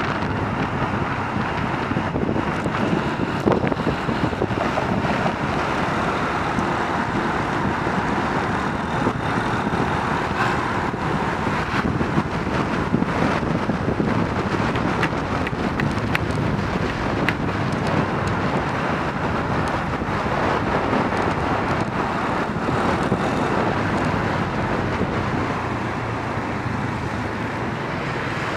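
Steady wind rush on the microphone and road noise from riding on a moving motorcycle through city traffic, easing slightly near the end as it slows among queued cars.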